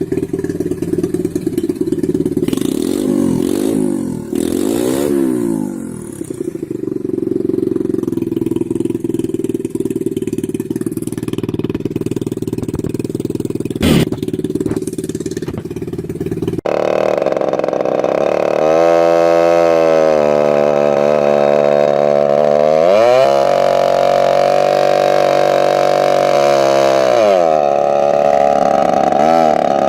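Small mini-motorbike engines running and revving: first one engine with a few short revs, then, after a sudden cut about 17 seconds in, another revving up and dropping back several times.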